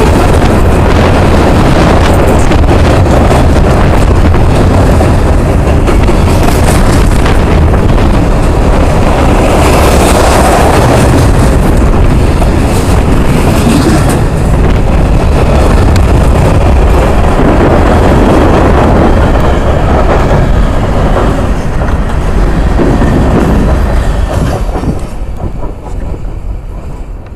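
Freight cars of a long freight train rolling past close by, loud, with steel wheels clattering over the rail joints. Near the end the sound drops off as the train moves away.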